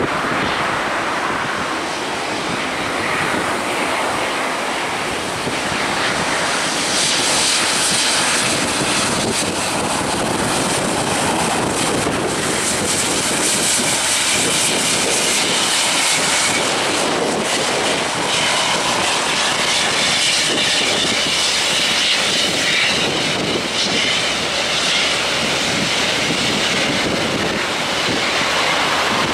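Airbus A350-900's Rolls-Royce Trent XWB turbofan engines running at low thrust as the jet taxis on the runway: a steady jet rush with a high whine that grows louder about a quarter of the way in and stays strong for much of the time.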